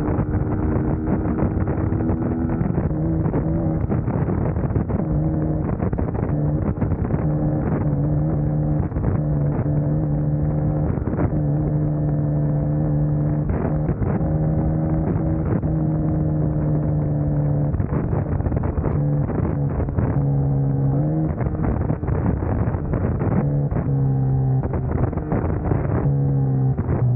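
Suzuki GSX-S150 single-cylinder engine running at a steady cruise. Its note holds mostly level with a few small shifts in pitch and starts to fall near the end as the bike eases off. Wind buffets the microphone throughout.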